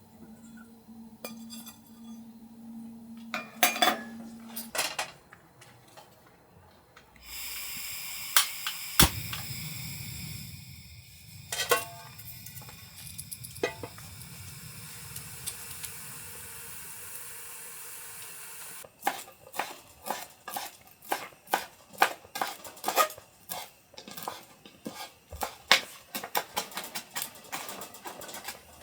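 Utensils and cutlery clinking and knocking against dishes and pots, with a stretch of steady hiss a few seconds in, then a quick run of taps in the second half.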